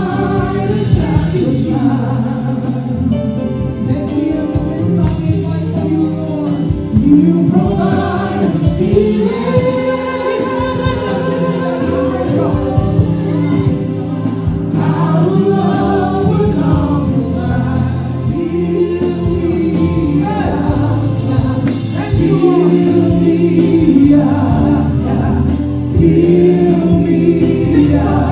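Gospel worship singing: a woman leads a worship chorus into a microphone with the choir singing along, over steady sustained accompaniment.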